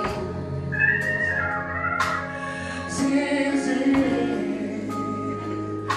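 Live gospel group: a male lead singer drawing out a sung line over backing vocals, electric bass and keyboard, with drum hits keeping a slow beat of about one a second.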